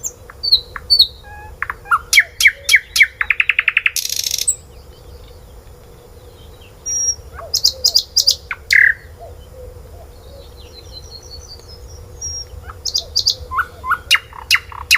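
Birds chirping in quick series of sharp calls, with a fast trill about three to four seconds in; the calling comes in three bursts separated by quieter gaps.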